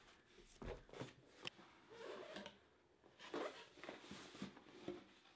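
Faint, scattered taps and scrapes of a cardboard product box being handled and its flap lifted open.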